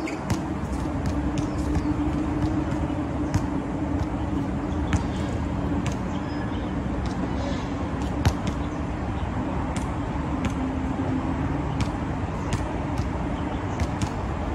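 Steady hum of road traffic, with irregular sharp knocks of a basketball bouncing on an outdoor hard court, about every second or two.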